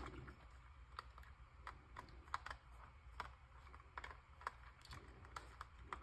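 Faint, irregular small clicks and ticks of a small screwdriver turning a screw out of the plastic battery cover on a toy RC truck.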